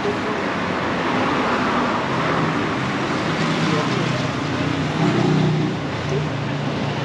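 Steady road traffic noise from a busy street, swelling briefly about two seconds in.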